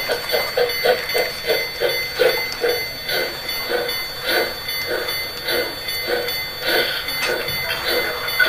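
Toy train running along its plastic track, giving a steady rhythmic chugging of about three beats a second over a faint high whine.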